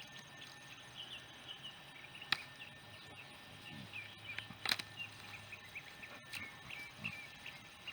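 Small birds chirping, many short varied calls, with two sharp clicks about two and four and a half seconds in.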